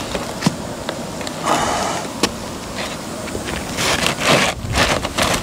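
Utility knife cutting an asphalt roof shingle: a few rough scraping strokes with sharp clicks between.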